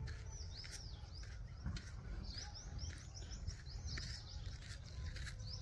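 Small birds chirping: short, high, curved notes repeated again and again, coming thicker from about two seconds in, over a steady low rumble.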